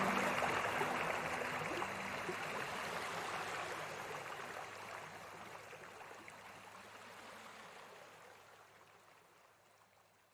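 Flowing river water, a steady rushing hiss, fading out gradually until it is almost gone by the end. A few soft sustained music notes die away in the first couple of seconds.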